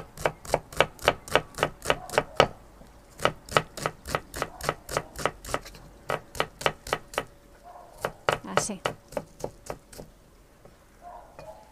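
Chef's knife mincing an onion on a thick wooden butcher-block board: quick, even knocks of the blade on the wood, about four or five a second, in three runs with short pauses, stopping near the end.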